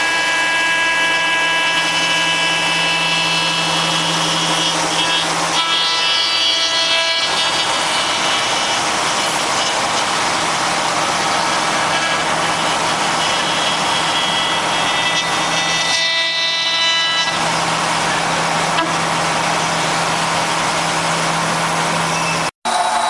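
A 5-axis CNC router spindle milling a wooden workpiece: a steady whine from the spindle over the hiss of the bit cutting wood. The whine changes briefly twice, about a third of the way in and again past the middle, as the cutter's path and load shift. Near the end it drops out for an instant.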